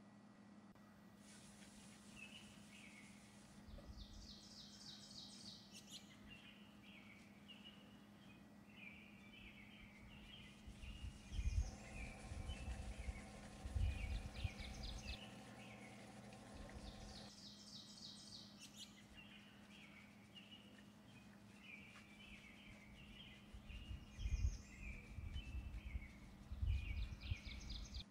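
Small birds chirping and twittering in short repeated phrases throughout, over a faint steady low hum. A few dull low thumps come around the middle and again near the end.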